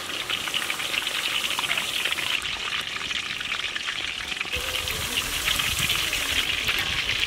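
Marinated chicken pieces deep-frying in hot oil, with a dense, steady crackling sizzle.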